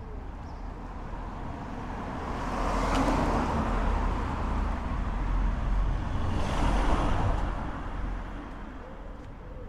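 A car driving past on the street, its tyre and engine noise swelling to a peak about three seconds in, swelling again around six to seven seconds in, then fading away.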